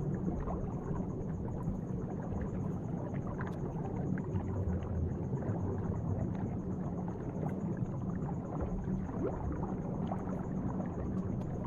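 Underwater bubble sound effect: a steady low bubbling and burbling with scattered small pops, over a faint steady high-pitched whine.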